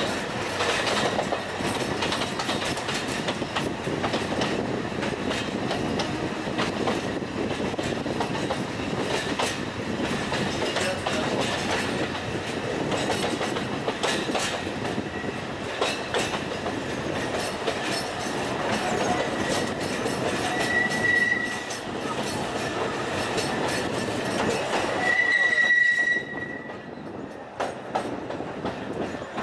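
Alishan Forest Railway narrow-gauge train running: a steady rumble with wheels clicking over the rail joints. Two brief high metallic squeals come in the last third, and after the second the running noise drops.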